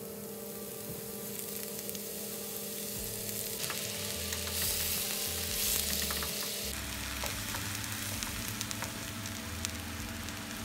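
Mushroom pieces sizzling in hot oil in a frying pan as they give off their water, stirred with a wooden spatula. The sizzle swells loudest a little past the middle, with small scrapes and clicks of stirring.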